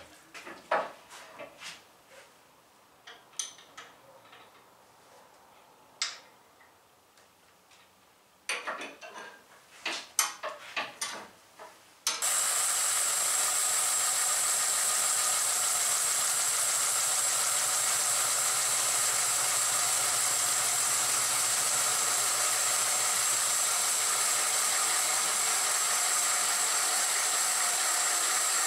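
Scattered light clicks and knocks for the first twelve seconds, then, abruptly, a restored 36-inch Hall and Brown #2 bandsaw running at speed on its first power-up: a steady loud whir with a strong high hiss and a steady whine.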